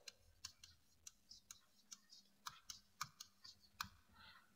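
Near silence with faint, irregular clicks of a stylus tip tapping and dragging on a digital writing board as a word is written.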